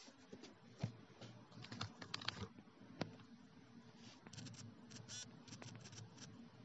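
Quiet room tone with faint, scattered small clicks and ticks: one a little under a second in, a few close together around two seconds in, and a loose cluster in the second half.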